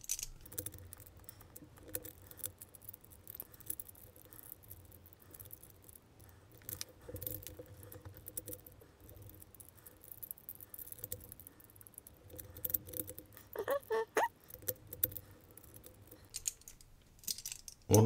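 Light, irregular clicks and scrapes of the cast-metal pieces of a Huzzle Cast Padlock puzzle being turned and slid in the fingers, played back sped up about four times.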